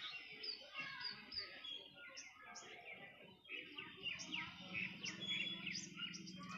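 Small birds chirping in quick, short, repeated notes. A low steady hum comes in about halfway through.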